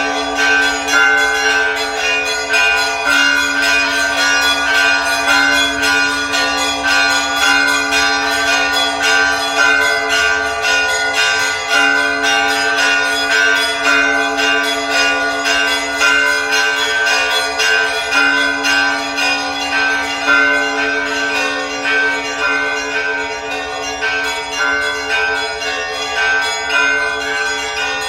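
Church bells pealing without a break, many bells struck in quick succession with their tones ringing over one another.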